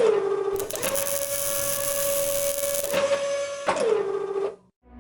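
Robot arm's electric motors whining as the joints move, the pitch dropping and coming back up with a click at each change of motion. The whine cuts off shortly before the end.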